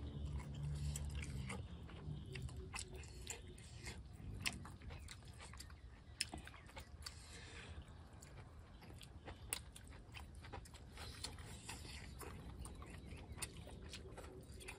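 Faint, irregular crunching and clicking of people eating and chewing.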